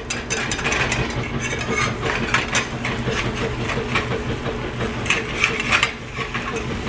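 Slotted metal spatula scraping and clicking against a frying pan in irregular strokes, working loose a pancake that is sticking and breaking up, over a steady low hum.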